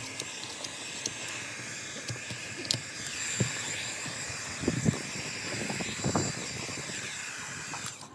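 Handheld heat gun blowing with a steady hiss, warming a vinyl window decal so it adheres better in cold weather, and switched off near the end. A few soft knocks sound partway through.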